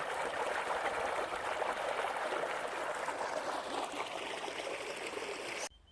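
Wannon River water running steadily over rocks just above the falls, a constant rushing that cuts off suddenly near the end.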